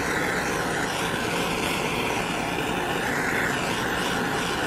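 Handheld gas torch burning with a steady, even hiss of flame.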